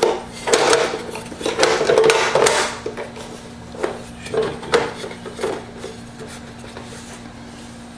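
Removable grill plates of a George Foreman GRP101CT grill clattering and clicking against the grill body as they are pressed and clamped into place. A burst of knocks comes in the first few seconds and a few more clicks about halfway through, then it goes quiet.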